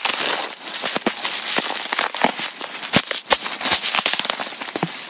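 Bubble wrap being handled and pulled apart: plastic crinkling and crackling, with a dense, irregular run of sharp clicks.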